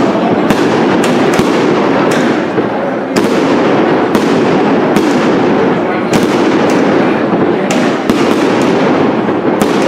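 Aerial fireworks bursting overhead in a string of sharp bangs, roughly one a second at uneven intervals, over the steady chatter of a crowd.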